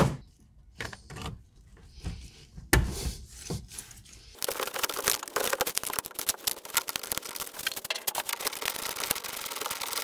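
A sharp knock and a few scattered clunks and scrapes of tool work, then from about four seconds in a hand ratchet clicking rapidly and continuously as the transmission cooler line clamp bolts are run in by hand.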